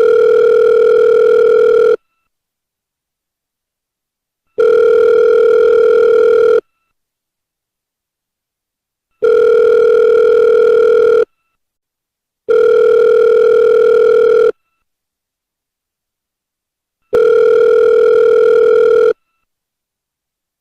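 Telephone ringback tone, the ringing a caller hears while the called phone rings: five steady two-second tones with silent pauses between them.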